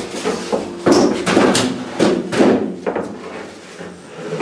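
Floor boarding sheets and a wooden stepladder being handled and set down on the floor timbers: a run of knocks and bumps, most of them between about one and three seconds in.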